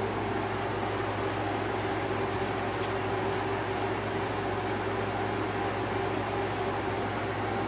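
Metal rake brush strokes through a Belgian Malinois's dense coat, a soft scratchy swish about twice a second, over a steady mechanical hum in the room.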